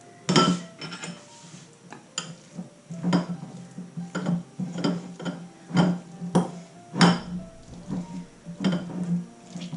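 Metal utensil clinking and scraping against a cut-glass bowl while flaked canned tuna is stirred into mayonnaise, in irregular sharp clinks about every half second.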